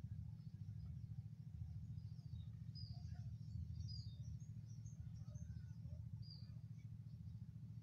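Faint, scattered chirps of small birds, thickest a few seconds in, over a steady low rumble.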